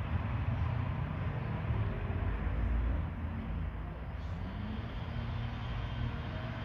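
Steady low rumble of motor traffic, with a faint engine tone rising in pitch about halfway through.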